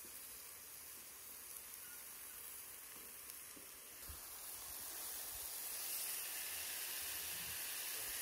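Vegetables and beef chuck steaks sizzling on a hot flat-top griddle, a steady hiss that grows louder about halfway through, with a few faint knocks near the middle.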